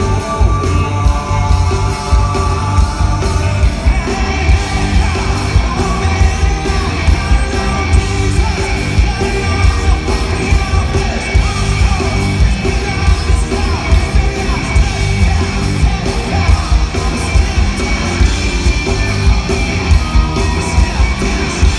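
Rock band playing live: a man singing into a microphone over a steady drum beat and electric guitar, heard from within the audience.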